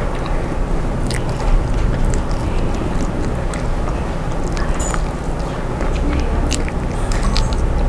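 Close-up eating sounds: fingers pulling apart yellow-spiced catfish and chewing, heard as scattered small clicks and crackles. Under them runs a steady low rumble.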